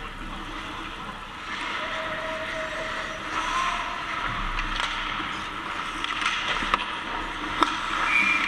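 Ice hockey play: skate blades scraping and carving on the ice, with two sharp stick-on-puck or puck-on-board clacks about two-thirds of the way through.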